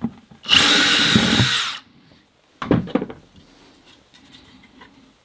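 Cordless drill with a half-inch bit boring through a plastic bucket lid, widening a smaller hole, in one burst of about a second. A few light knocks follow.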